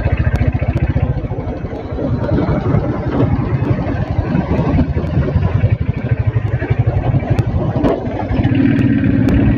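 Motorcycle engine running while riding, a fast, even low pulsing. A steadier hum joins near the end.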